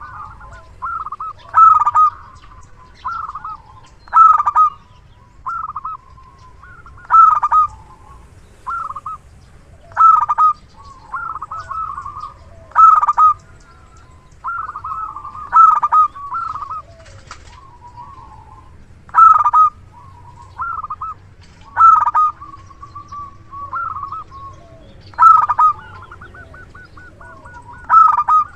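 Zebra dove (perkutut) cooing over and over: short trilling coo phrases about every second and a half, loud ones alternating with softer ones. A low steady hum runs underneath.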